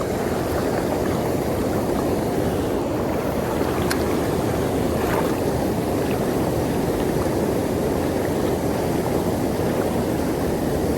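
Steady rush of river water pouring over a dam, an even, unbroken noise, with a couple of faint ticks around four and five seconds in.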